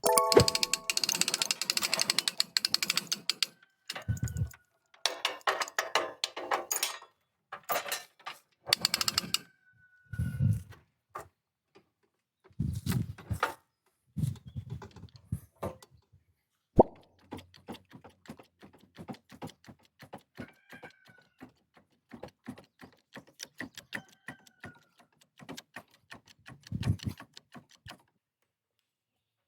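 Hand work on a lawn mower: a run of metal clanks, knocks and rattles with a few short squeaks, and one sharp knock about 17 seconds in.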